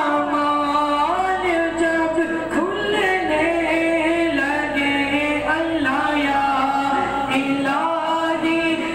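A single voice singing an unaccompanied melodic Islamic recitation, moving through long held notes that waver and slide between pitches.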